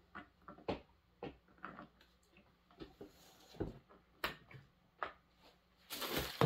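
Light, irregular clicks and knocks of plastic and metal parts as a new Proyama chainsaw is handled and assembled at the clutch cover and chain brake. There is a louder rustling clatter near the end.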